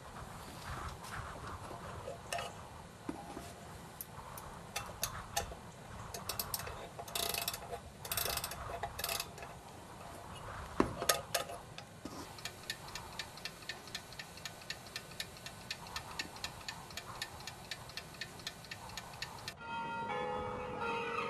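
A mechanical clock ticking, with scattered clicks and a few short rustling bursts in the first half, then settling into steady, even ticking about halfway through.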